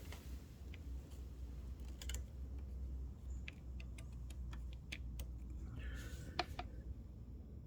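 A run of light, irregular clicks and taps, the sharpest about six and a half seconds in, over a steady low hum.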